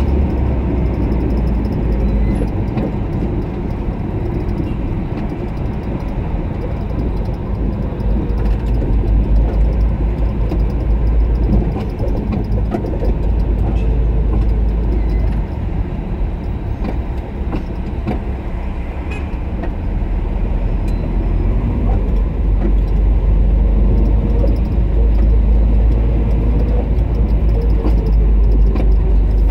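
Low, steady rumble of a car's engine and tyres heard from inside the moving car in slow traffic, growing a little louder in the last third of the stretch.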